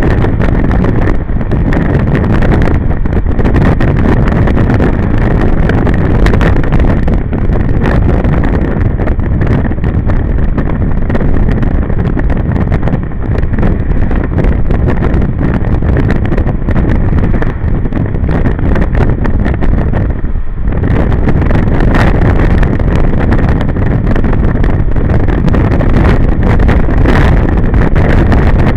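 Wind buffeting the microphone of a camera on a moving motor scooter, with the scooter's engine running beneath. The noise is loud and steady, easing only briefly about two-thirds of the way through.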